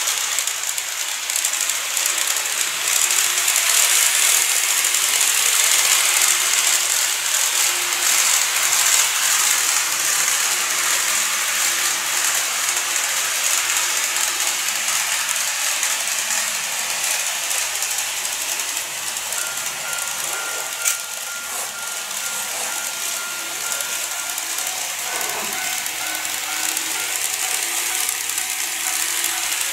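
KATO N-scale 381 series model train running along plastic track: a steady, hissing rush of small wheels on the rails and the motor. Faint steady tones join about two-thirds of the way in, with a single sharp click shortly after.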